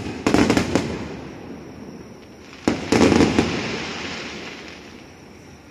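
Aerial firework shells bursting: two sharp booms, the first at the start and the second under three seconds later, each followed by a quick run of crackles and a rumble that slowly dies away.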